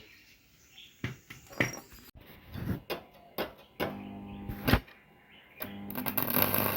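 Metal parts being handled: a run of sharp knocks and clanks, followed by a steady buzzing hum with a loud hiss near the end.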